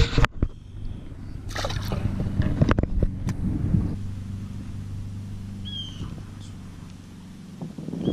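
A small largemouth bass splashes back into the water at the start, followed by a spinning reel being wound, with a steady low hum through the middle.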